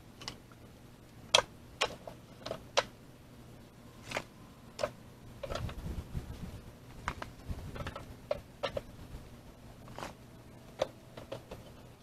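Short pieces of scrap board being gathered and tossed into a utility vehicle's cargo bed, landing as a dozen or so irregular wooden knocks and clatters, with some shuffling and handling in the middle.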